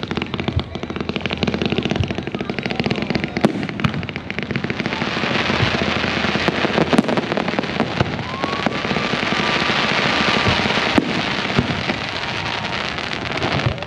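Fireworks show: a dense, rapid crackle of fireworks stars with sharp bangs scattered through it. The crackle swells about midway through.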